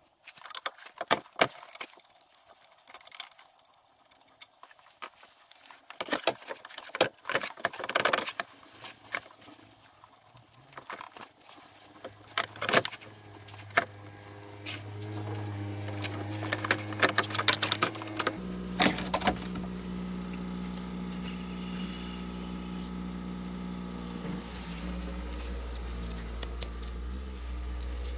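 Clinks and knocks of metal parts being handled, then a steady motor hum that comes in about halfway and changes pitch suddenly about two-thirds of the way in.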